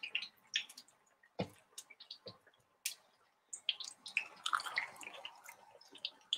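Battered zucchini flowers frying in hot sunflower oil, the oil crackling and popping irregularly. There is a dull knock about a second and a half in.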